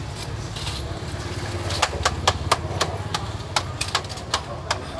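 Knife chopping rolled rice noodles (chee cheong fun) on a steel tray: quick sharp knocks, a few a second in uneven runs, starting a little under two seconds in. A steady low hum runs underneath.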